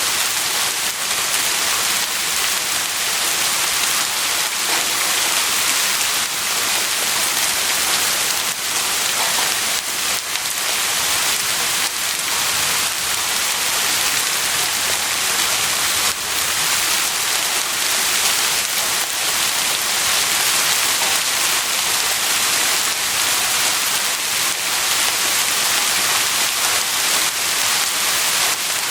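Heavy rain falling steadily, a dense hiss of countless drops pattering on a surface.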